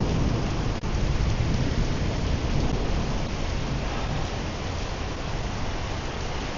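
Heavy monsoon rain pouring down steadily, with a deep rumble underneath. The sound drops out for an instant about a second in.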